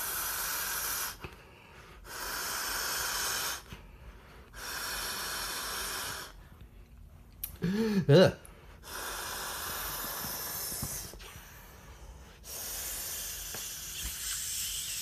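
A person blowing by mouth into the valve of a vinyl inflatable axe: about five long, breathy blows with short pauses for breath between them. A brief vocal sound comes about eight seconds in.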